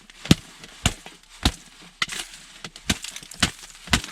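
Sharp, evenly spaced knocks, about two a second and seven or eight in all: the rhythmic tapping used to lure burbot when fishing 'na stuk'.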